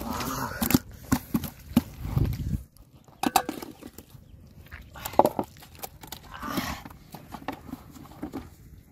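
Irregular knocks, slaps and rustles of fish being handled in a plastic basin, with a low rumble that cuts off about two and a half seconds in.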